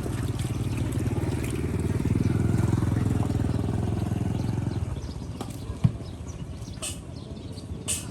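A small petrol engine running close by, growing louder and then dropping away about five seconds in; a single short thump follows.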